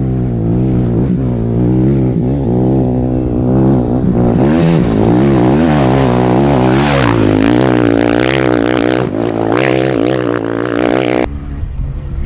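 Dirt bike engine running under riding load, its revs rising and falling over and over as the throttle is worked, with a rush of wind or dirt noise in the middle. The sound changes abruptly near the end.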